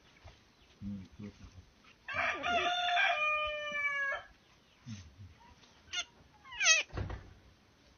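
One long animal call about two seconds in, lasting about two seconds with a rough start and then a held, steady pitch. Near the end comes a short high squeak that slides in pitch, then a thud.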